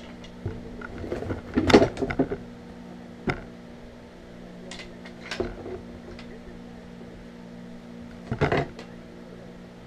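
Deer antlers being handled in a cardboard box, knocking and clacking against each other and the box in short, irregular bursts, loudest about two seconds in and again near the end. A steady low hum runs underneath.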